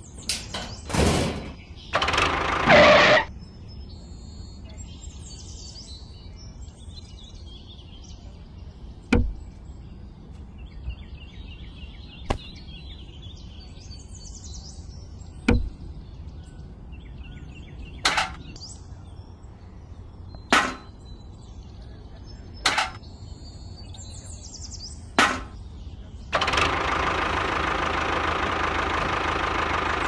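Small plastic toy parts being handled and set down: sharp clicks and knocks every few seconds, over faint bird chirps. Near the end, a small electric motor in the toy model starts and runs steadily.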